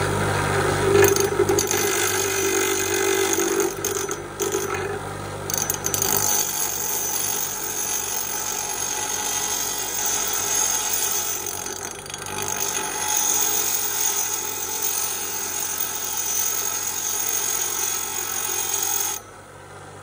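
Bench grinder wheel grinding the tabs off a forged aluminium Shimano XT crank arm held against it: a steady motor hum under a high grinding hiss and whine. The grinding drops away sharply near the end.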